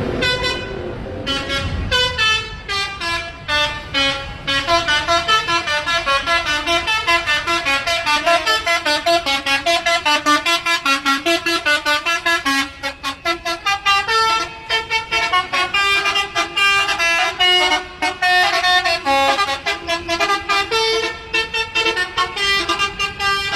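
Intercity bus's telolet horn playing a fast, bouncing tune of short toots at changing pitches, several notes a second, over and over.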